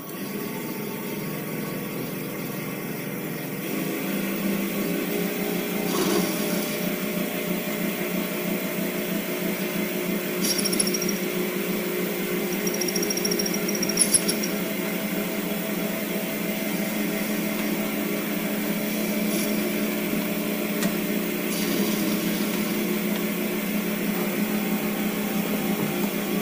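Small benchtop metal lathe running steadily with its chuck spinning while a boring tool cuts a deeper bearing seat into a fishing reel's rotor nut. A few brief faint high squeaks come from the cut about halfway through.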